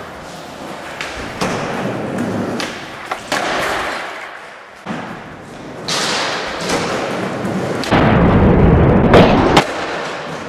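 Skateboard sounds: scattered sharp knocks of a board on the ground, then wheels rolling loud and close for about a second and a half near the end, ending on a sharp knock.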